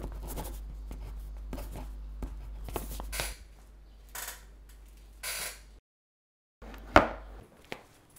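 Small clicks and short rustles of handling noise over a low hum. The sound cuts to silence for under a second, then comes a single sharp knock about seven seconds in.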